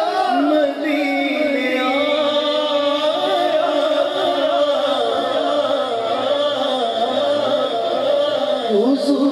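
A man singing a naat in long, wavering melismatic lines into a microphone, with other men's voices sustained beneath him.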